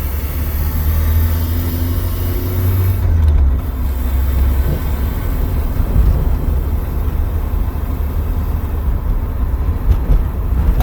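Car engine running with a steady low rumble, its pitch shifting a little in the first few seconds.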